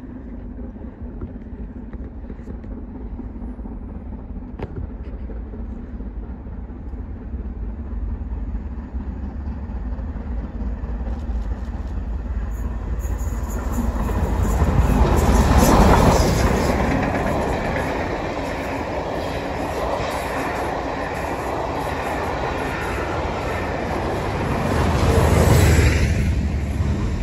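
LMS Black Five 4-6-0 steam locomotive 44871 approaching and passing close while working up a bank, followed by its train of carriages running by. The sound builds from faint to its loudest about halfway through as the engine passes, then stays loud as the coaches go by.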